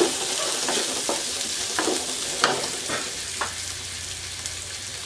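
Sliced onions, garlic and ginger sizzling in olive oil in a wok. A wooden spatula scrapes and knocks against the pan several times during the first three seconds or so. After that the stirring stops and the steady sizzle goes on.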